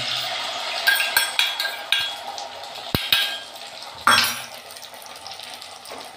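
Steel bowl and utensils clinking and knocking on a kitchen counter as eggs are prepared for an omelette: a few light clinks, a sharp knock about three seconds in and a louder clatter about a second later, over a steady hiss.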